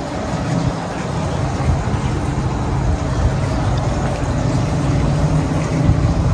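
Steady low rumbling background noise, like motor traffic.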